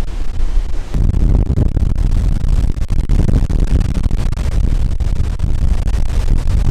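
Hurricane-force wind buffeting the microphone, a loud, dense rumble, stepping up about a second in.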